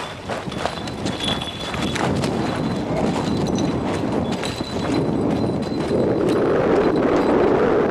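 Footsteps crunching and sliding down a slope of loose volcanic scree, a quick run of gritty steps that grows louder over the last couple of seconds.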